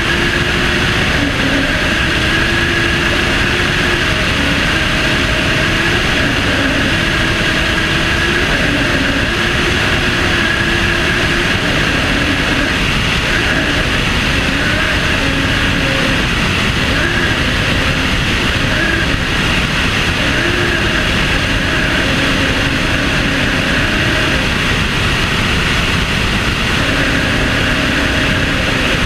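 Aircraft engine and rushing airflow in flight, heard from a wing-tip-mounted camera: a steady, loud drone whose engine tones waver slightly in pitch.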